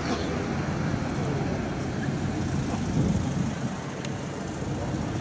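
Renault Espace car driving past in street traffic, engine and tyre noise rising to its loudest about three seconds in, with no siren sounding.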